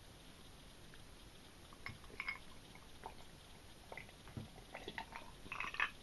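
A person drinking from a glass over cracked ice: faint sips and swallows with small clicks of ice against the glass, more frequent near the end.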